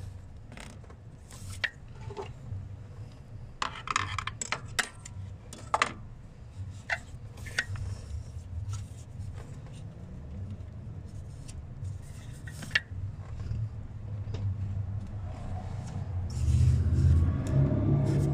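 Hands fitting a new purge valve onto its hoses and mount in a car's engine bay: scattered plastic clicks, knocks and scrapes. Near the end a vehicle engine's low rumble comes in and grows louder.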